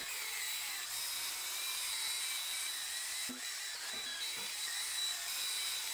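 Power drill spinning a 3-inch foam polishing pad against painted sheet metal, buffing in correcting compound. The motor runs steadily with a thin high whine, and a few faint knocks come from the pad and tool about three to four seconds in.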